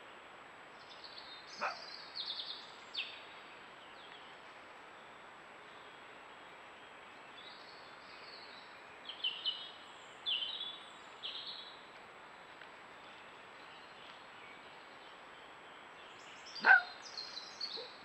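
A red fox vixen calling to her grown cubs: short, high-pitched calls in small clusters, and one louder call near the end, over a steady hiss.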